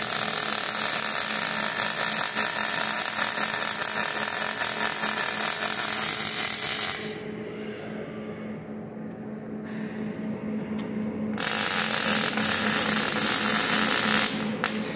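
KUKA robot's MIG welding arc crackling and sizzling in two welds: the first runs about seven seconds and cuts off, the second starts a little after eleven seconds and stops shortly before the end. A steady low hum continues underneath, including in the quieter gap between the welds.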